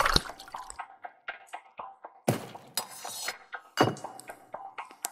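Liquor is poured into a cup at the very start. Then comes a series of sharp knocks, each with a short ringing tail; the loudest fall about two and a half seconds and four seconds in.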